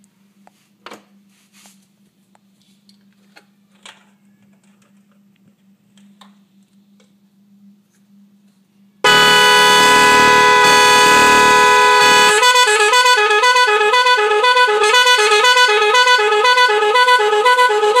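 Magic 10 multi-tone electric car horn, a 410 Hz and 510 Hz horn pair driven by a control module. After several quiet seconds with faint clicks, it sounds a loud, steady two-note blast, the regular horn, for about three seconds. It then switches to its second tone, a repeating warble that alternates between pitches.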